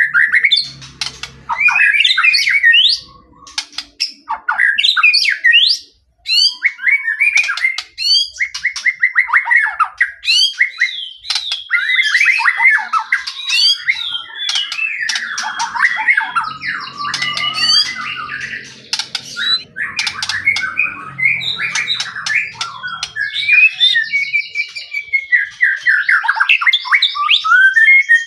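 White-rumped shama singing a loud, varied song of whistled phrases, rapid trills, sweeping notes and harsh chattering, in full continuous song (gacor), with a short pause about six seconds in.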